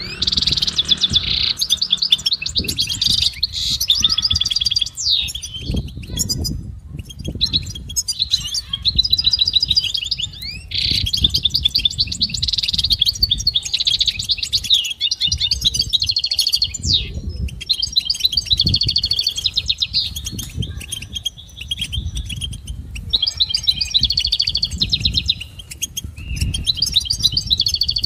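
European goldfinch singing: long phrases of rapid twittering trills and tinkling notes, broken by short pauses, over a low rumble.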